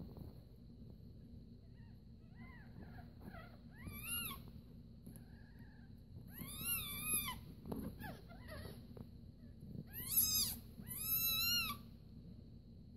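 Newborn kittens mewing as they scramble to nurse: a string of short, high, rising-and-falling cries, faint at first and louder in the second half, loudest about ten seconds in.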